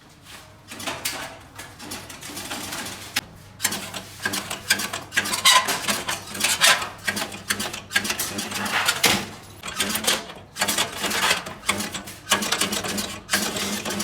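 Irregular clicks, knocks and light metallic clatter of stove parts being handled and fitted by hand, over a steady low hum.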